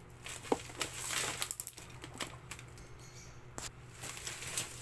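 Bubble wrap and plastic packaging crinkling and rustling as hands pull it off small cosmetic boxes, with irregular sharp clicks and crackles.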